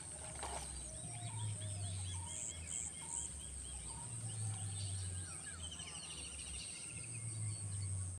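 Small birds chirping and calling over and over, including a rapid trill, over a steady high-pitched hiss and a low rumble that comes and goes every few seconds.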